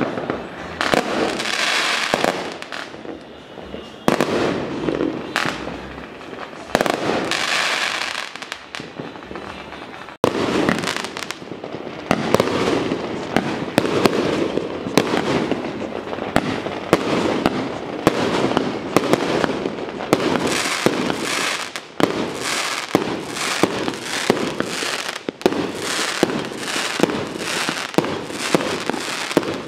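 Fireworks and firecrackers going off without a break: rapid volleys of bangs and crackling, with louder single blasts standing out at intervals, growing denser and steadier about a third of the way in.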